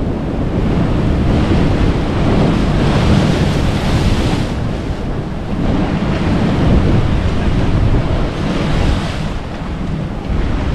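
Sea waves breaking and washing against rocks, with wind buffeting the microphone; the surf rises and falls, swelling louder twice as waves surge in.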